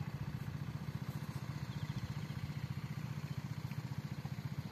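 A small engine running steadily at idle-like speed, with an even throb of about ten beats a second.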